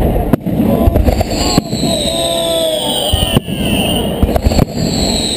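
Aerial fireworks bursting overhead in quick succession, with bangs and dense crackling. From about a second in, a high whistle slowly falls in pitch.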